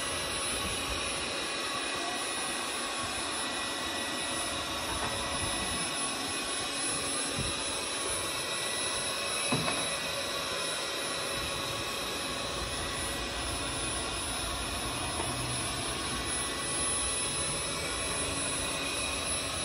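Hobot window-cleaning robot's suction fan running steadily, a continuous whir with a few steady high tones, as the robot crawls across a glass pane. A light click about halfway through.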